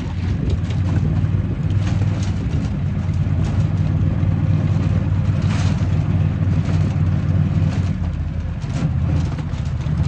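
Engine of a farm utility vehicle running steadily as it drives across a pasture, with wind rushing over the microphone.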